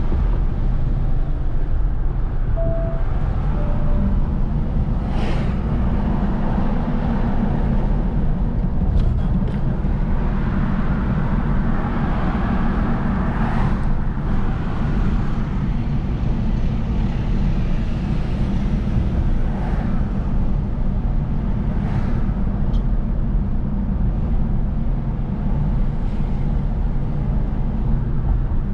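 Car driving at steady speed: a continuous low engine and road rumble from inside the moving vehicle. Two brief faint beeps sound a few seconds in.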